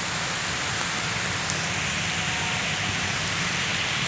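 Steady rain falling, a continuous hiss with a few sharp drops pattering close by.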